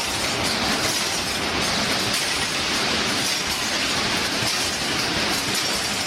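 Semiautomatic wire-mesh welding line running: a steady mechanical clatter and hiss.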